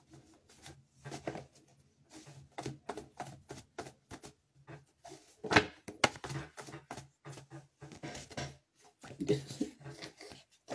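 Tarot cards being shuffled and handled by hand: a run of irregular soft slaps and taps, with one louder slap a little past halfway.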